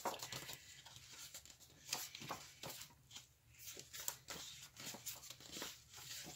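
Paper handling: sticker-book pages being leafed through, soft rustles and flicks at an uneven pace, a few of them sharper.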